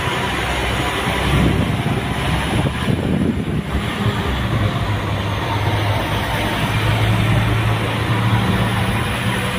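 NI Railways Class 4000 diesel multiple unit moving along the platform, its underfloor diesel engines running with a steady low drone over wheel and rail noise, a little louder about seven to nine seconds in.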